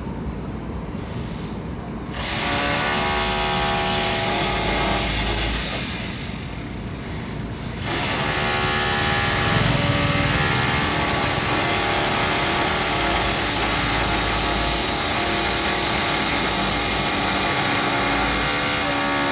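A motor-driven machine running loudly with a whining tone. It starts up about two seconds in, eases off briefly, then runs on steadily.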